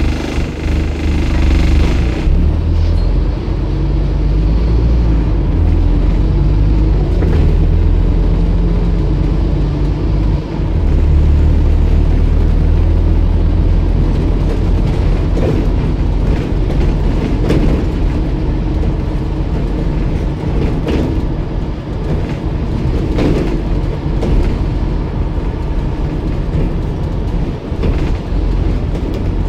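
Interior drone of a Scania N230UD double-decker bus's five-cylinder diesel engine and its road noise heard from the upper deck as the bus drives, a steady low rumble. A hiss stops about two seconds in, and scattered rattles and knocks come from the bodywork.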